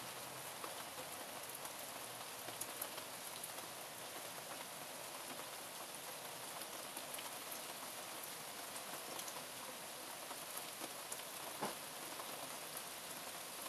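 Steady rain falling on a garden lawn and apple-tree leaves, with many small drop ticks scattered through it and one louder tap near the end.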